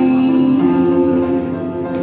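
Instrumental music with held chords, the song's accompaniment sounding between sung lines.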